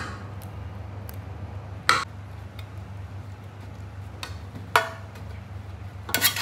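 A few sharp metallic clicks and clinks of tongs knocking against a metal loaf pan while it is greased with butter: single knocks about three seconds apart, the middle one ringing briefly, then a quick cluster near the end. A steady low hum runs underneath.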